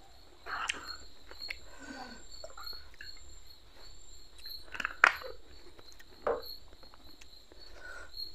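Crickets chirping steadily in a constant high pulsing drone. Water is poured from a plastic bottle into a glass, with a sharp knock about five seconds in and a few softer clatters.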